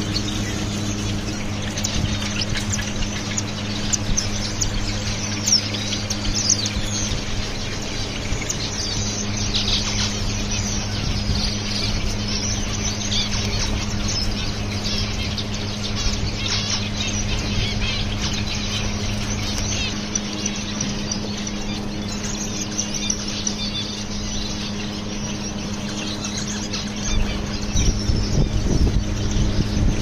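A flock of caged finches, Gouldian and zebra finches among them, chirping constantly with many short, high, overlapping calls. A steady low hum runs underneath, and the sound grows a little louder near the end.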